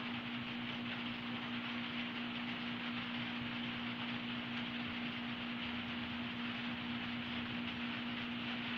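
Steady background hiss with a constant low hum underneath, unchanging throughout, with no distinct clicks or knocks.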